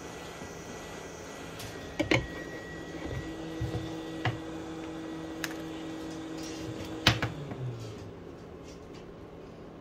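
A few sharp clicks and knocks, loudest about two seconds in and again about seven seconds in, as a suction cup is pressed onto and worked on a Samsung Galaxy S10+'s glass back. A faint steady hum runs underneath.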